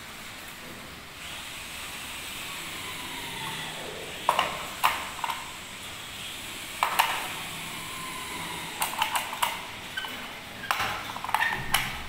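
Packaging rustling, then a series of sharp clicks and knocks as a Europa rim door lock's body and knob are handled and set down on a hard floor.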